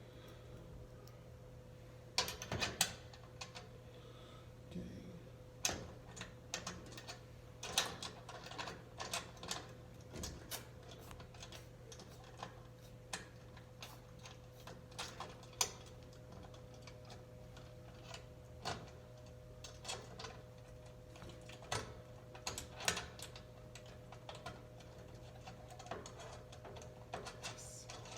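Irregular small metal clicks, taps and scrapes as a new mailbox lock is fitted into the box door and its retaining screw is put back in, over a faint steady hum.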